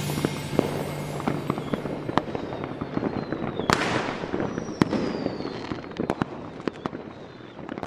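Fireworks display: a scatter of sharp bangs and crackling pops, with a falling whistle about halfway through, the whole slowly fading.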